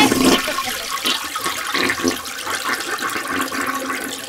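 A toilet flushing: a rush of water that gradually fades away.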